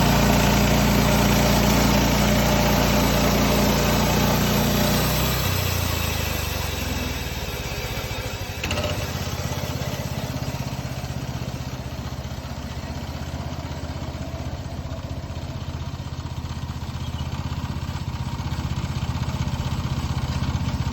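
Resaw bandsaw running, its blade cutting through spruce with a loud, dense sound for about the first five seconds; the sound then drops and changes pitch as the cut ends and the saw runs on more quietly. A single knock comes about nine seconds in.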